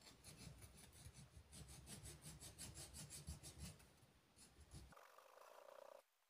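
Faint hand file rasping in quick, even back-and-forth strokes across a homemade aluminium thread insert, filing it flush where it stands proud of a Kawasaki AR two-stroke crankcase's cylinder base face. The strokes stop about five seconds in.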